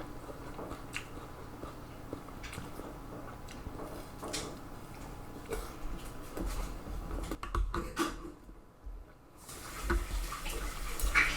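Scattered light clicks and clinks of bowls and utensils being handled, with some liquid sloshing, like soup broth being moved about.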